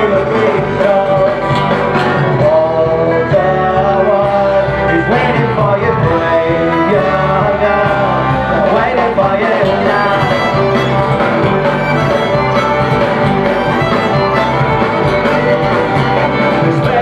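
Folk-punk band playing live and loud, a fiddle carrying the tune over guitar, with some singing.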